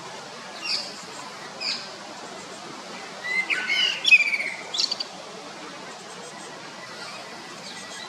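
Common blackbird singing. Two short sharp notes come first, then about three seconds in a warbled phrase of gliding notes that ends in higher twitters.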